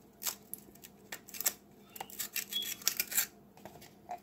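Plastic ice cube tray being flexed and pressed by hand, giving an irregular run of sharp crackles and clicks as the cubes pop loose and are put into a plastic cup. The loudest cracks come about three seconds in.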